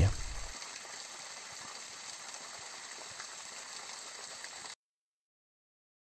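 Small waterfall splashing steadily as its stream of water falls through icicles into the brook below; the sound stops suddenly near the end.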